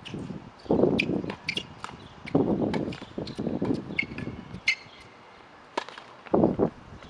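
Tennis rally on an outdoor hard court: sharp pops of racket strings hitting the ball, ball bounces and players' footsteps on the court. Several short bursts of low, rough noise come in between.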